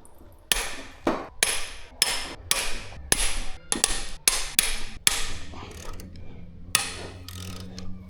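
A series of sharp metallic knocks with a short high ring after each, about two a second, then sparser near the end: steel hand tools striking the engine while the bank 2 cylinder head is taken off.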